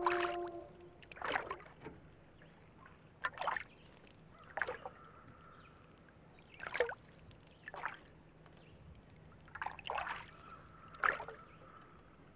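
The tail of a wolf howl falls in pitch and fades out in the first half second. After it come about nine short, soft drip-like sounds, spaced irregularly a second or so apart, over a faint steady hum.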